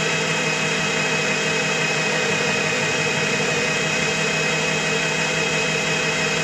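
Einhell BT-TB 13 E Digital bench drill press running steadily in first gear at about 350–360 rpm, its 40 mm Forstner bit boring into a wooden beam: a steady motor hum with several high whining tones. The electronic speed control holds the speed under the load, letting it drop by at most about 20 rpm.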